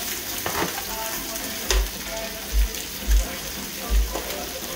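Barbecue chicken sizzling on an electric indoor grill, a steady hiss, with light clicks of metal tongs lifting pieces off the grill plate and a few dull thumps.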